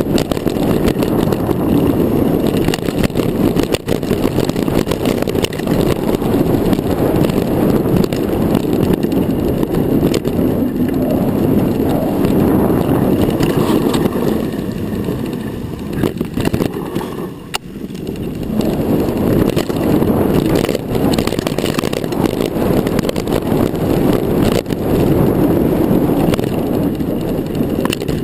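Mountain bike riding fast down a dirt singletrack: a steady rush of tyre and wind noise with knocks and rattles from the bike over bumps, easing off briefly a little past halfway.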